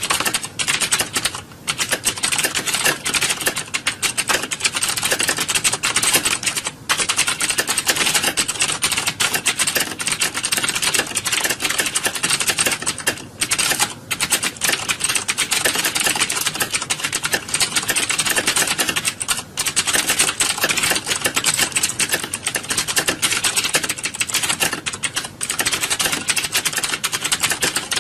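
Computer keyboards being typed on fast and continuously, dense clacking of keys like many candidates typing at once in an exam hall, with only a few brief pauses.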